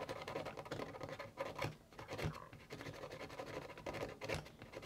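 Cotton bud scrubbing the solder pads and holes of a circuit board: a rapid, uneven dry scratching.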